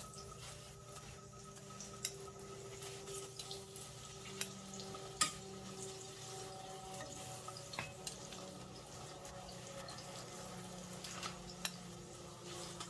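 Hilsa fish pieces frying in hot oil in a flat pan, a steady sizzle with scattered sharp pops and spatters. A faint steady hum runs underneath.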